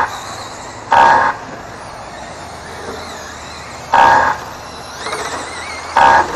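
Three short electronic beeps from an RC race lap-timing system, each about a third of a second long, coming about a second, four seconds and six seconds in as cars cross the timing line. A steady background noise fills the gaps between them.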